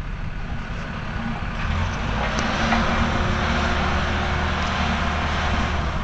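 Diesel engine of a road roller compactor running steadily with a low hum, growing louder about one and a half seconds in.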